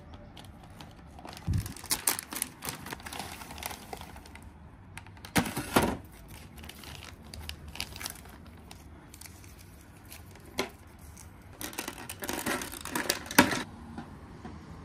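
Clear plastic parts bags crinkling and rustling as they are handled and unpacked. It comes in bursts: about two seconds in, again briefly near six seconds, and again near the end.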